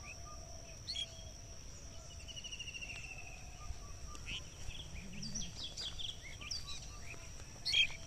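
Rural field ambience: birds chirping, with a run of short calls in the second half, over a steady high-pitched insect drone and a repeating pulsed trill.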